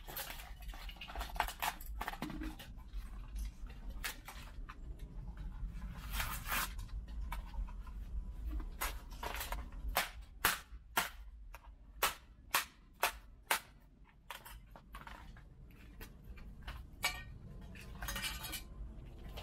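Plastic parts of a DJI FPV drone cracking and snapping as they are broken apart by hand: a string of sharp cracks and clicks, with a quick run of loud snaps about halfway through.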